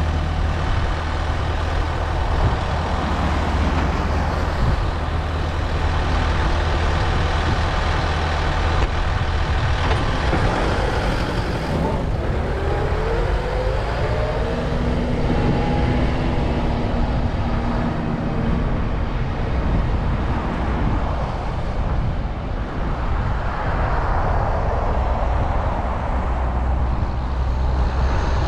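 Kubota M5-091 tractor's diesel engine running steadily as it plows, its pitch rising as it revs up about twelve seconds in.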